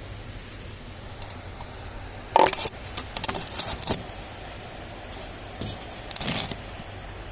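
Two bursts of rapid, sharp metallic rattling, about two and a half seconds in and again near the end, over a steady background hiss.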